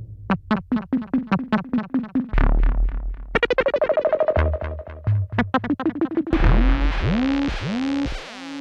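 Synthesized electronic sounds: a train of sharp clicking pulses, about five a second, then a faster run of ticks over a steady tone. Near the end come repeated arching chirps that rise and fall over a low drone and hiss.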